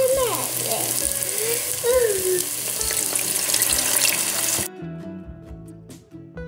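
Tamarind water poured into a pot of hot oil and fried onions, sizzling loudly as the liquid hits the hot pan. It cuts off suddenly about four and a half seconds in.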